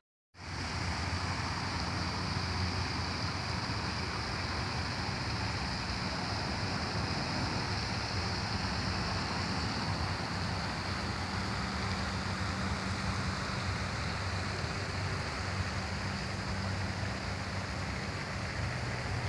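Steady splashing hiss of pond fountain spray falling onto the water, with a faint low hum underneath. The sound drops out for a moment at the very start, then runs on evenly.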